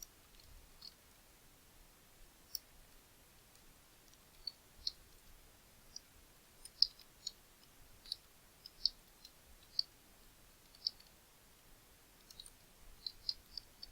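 Faint, irregular clicks of a computer keyboard being typed on slowly, a few keystrokes at a time.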